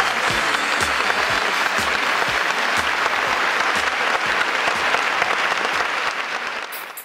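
Audience applause, dense and steady, fading out quickly near the end.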